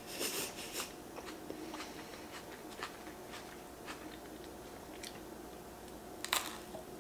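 A person chewing crunchy raw green onion, with a burst of crisp crunching right at the start, then quieter chewing with small clicks. About six seconds in comes one sharp crunch as she bites into an air-fried crispy rice ball.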